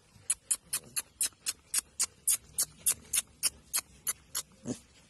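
A rapid, even run of short, sharp clicks, about four a second, that stops near the end with one duller knock.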